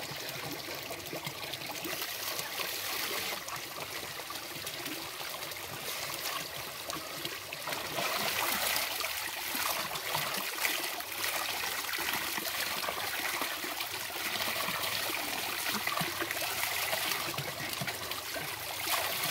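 Water pouring steadily from a pipe spout and splashing into a plastic basin and a shallow muddy pool, the stream breaking over a person's head and hands as she rinses under it. The splashing gets louder about eight seconds in.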